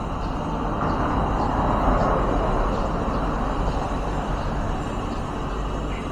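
A passing vehicle: a noise with no pitch that swells over about the first two seconds and slowly fades, over a steady low hum, with a few faint high bird chirps.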